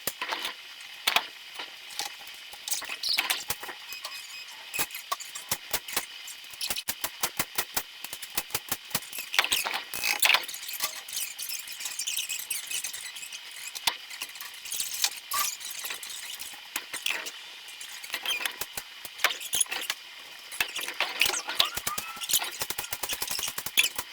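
Hand-tool work on a manual transmission being taken apart: a steady run of sharp metallic clicks, clinks and short squeaks, with quick rattling strings of clicks now and then.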